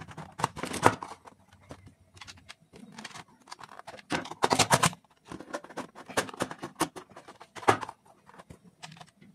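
Plastic bulb holder and plastic switch board being handled on a bench: irregular clicks, taps and scrapes of plastic parts being set in place, along with a screwdriver, in several short bursts.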